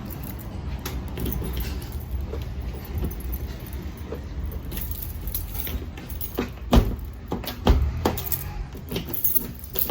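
Handling noise at the truck door: scattered small clicks and rattles, then a few sharp knocks in the second half, the loudest two about a second apart, over a steady low rumble.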